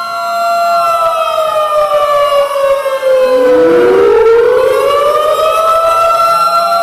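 Several sirens sounding together: a steady siren tone holds while a tornado warning siren's pitch slides down and then climbs back up about four seconds in, with other wailing sirens sweeping over it.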